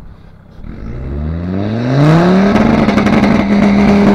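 An off-road 4x4's engine revving hard as it accelerates away. Its pitch climbs for about a second and a half and holds at high revs, then drops at a gear change near the end and starts to climb again.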